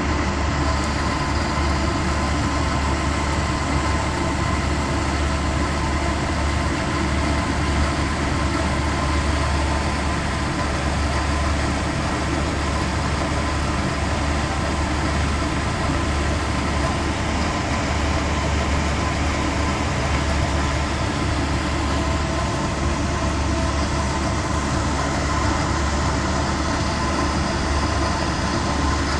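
Steady mechanical hum with a strong low drone and a few steady whining tones, unchanging throughout.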